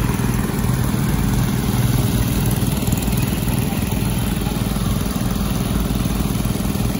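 Small petrol engine of a portable dewatering water pump running steadily at constant speed.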